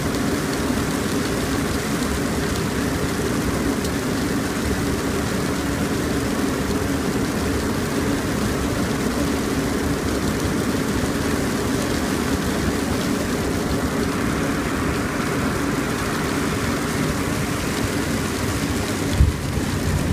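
Steady cockpit noise of a Beechjet 400XP twin-turbofan business jet on final approach and touchdown in heavy rain: even rushing of airflow and engine noise with rain on the windscreen. Near the end a sudden thump is followed by louder, uneven rumbling.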